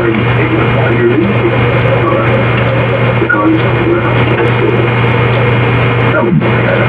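Loud, heavily amplified recording noise: a steady low electrical hum under dense hiss, with small indistinct blips scattered through it.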